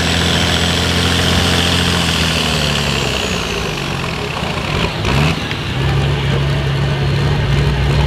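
International 1066 pulling tractor's turbocharged diesel running hard under load with a high whine, black smoke pouring out, as it drags the sled. About three seconds in the revs fall away as the pull ends. There is a brief noise about five seconds in, and the engine then runs steadily at lower revs.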